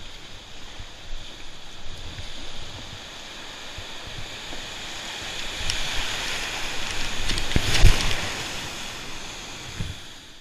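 Outdoor water sound with wind buffeting the microphone, a steady hiss with low rumbling bumps, briefly louder about eight seconds in.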